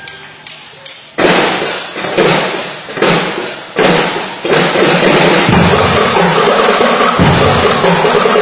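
School drum and lyre corps: after a short lull, four heavy accented drum hits about a second apart, each ringing out in the gymnasium, then the full corps of drums and bell lyres plays on steadily and loudly.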